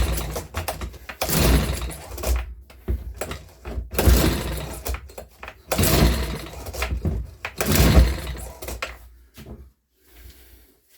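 Makita BHX2500 four-stroke leaf blower being pull-started from cold on choke: a run of about six recoil-starter pulls, one every second and a half to two seconds, stopping near the end. The engine does not catch; the owner suspects a fuel problem.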